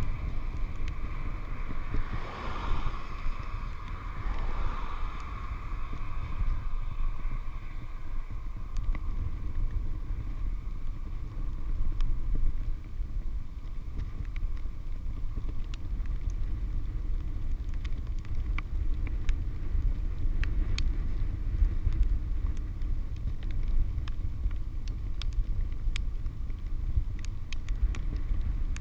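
Wind buffeting a handlebar-mounted action camera on a bicycle rolling downhill, a steady low rumble with tyre noise. About two seconds in, an oncoming heavy truck passes, its sound falling in pitch as it goes by; later come scattered faint clicks.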